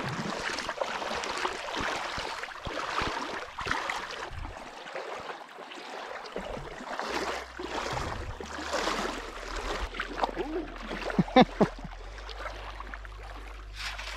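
Legs wading through shallow tidal water, with a splash and slosh at each step. About eleven seconds in, a short pitched call of three quick notes is the loudest sound.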